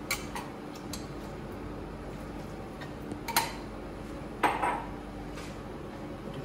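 Metal spoon clinking against a glass bowl and frying pan while raw chicken strips are scooped into the pan, with a few light taps near the start and two sharper, ringing clinks about three and four and a half seconds in.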